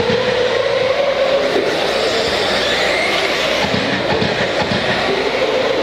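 Several electric RC stadium trucks with 13.5-turn brushless motors racing on a dirt track: overlapping motor whines that rise and fall in pitch as the trucks accelerate and slow through the turns, over a steady hiss of tyres on dirt.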